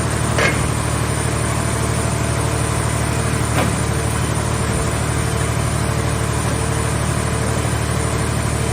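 Scrap car shell baler's power unit running steadily with a low hum, with two short knocks, one about half a second in and one about three and a half seconds in.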